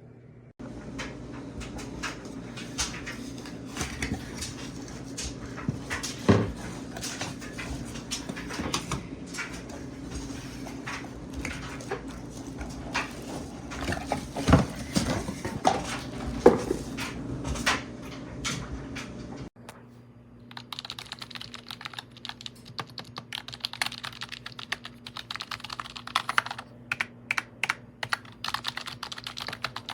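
Typing on a wireless keyboard with round, typewriter-style keycaps: a fast, irregular run of key clicks. A steady low hum sits under the first two-thirds and cuts off abruptly, leaving the clicks clearer.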